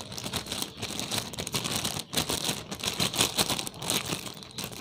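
Clear plastic bag crinkling and rustling steadily as hands squeeze and knead it to mix the liquid inside.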